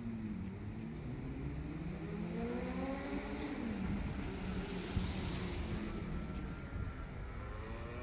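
Diesel railcar engine running, its pitch rising and falling as the engine speed changes, then climbing again near the end.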